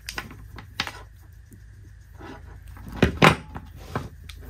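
Handling noise of bullet pixel lights being pushed with pliers into a 3D-printed PETG candy cane: scattered small plastic clicks and taps, with a louder thump about three seconds in.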